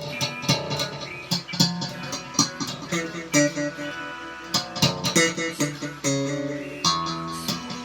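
Electric bass guitar with an active onboard EQ, treble turned up, played in a slap style: a run of sharp, percussive slapped and popped notes.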